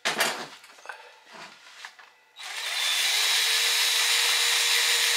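Handheld power drill loosening the inline fan's retaining rings: a few short knocks, then about two seconds in the drill starts and runs at a steady whine for about three seconds.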